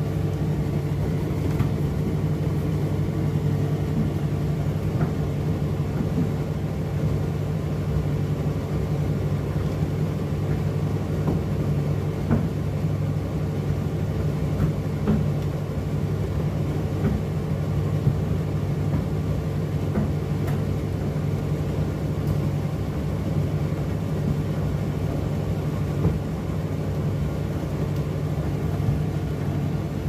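Indesit IDC8T3B condenser tumble dryer running mid-cycle: a steady low hum and rumble from its motor and turning drum, with a few light ticks now and then.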